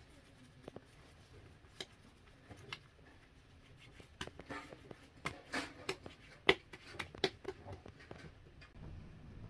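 Hands patting and working a lump of bread dough, rounding it into a ball between the palms: irregular soft pats and light clicks, sparse at first and coming thick and fast from about four seconds in.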